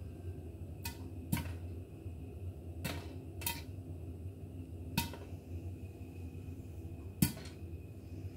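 Popcorn kernels popping in a covered stainless steel pan, six sharp pops spaced irregularly, some knocking against the glass lid, over a steady low hum.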